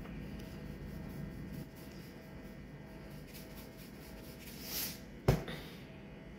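Plastic iodised-salt container shaken over a halved passion fruit, with a light scratchy rattle of salt and handling, then a brief hiss and one sharp knock a little over five seconds in as the container is set down.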